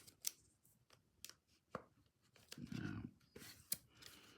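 Light clicks and scrapes of a thick trading card and a rigid plastic top loader being handled, with a longer rustle a little past the middle, as the card is pushed at a 75-point top loader too thin for it.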